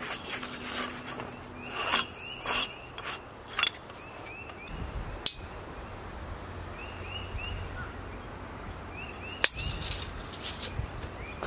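Tape measure being handled on a sawn oak slab, giving a few sharp clicks, the loudest about five and nine and a half seconds in. Under it a small bird chirps in short runs of three or four notes.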